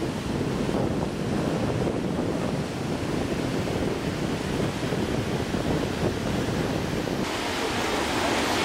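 Steady rush of ocean surf with wind buffeting the microphone; the sound changes abruptly about seven seconds in, turning hissier.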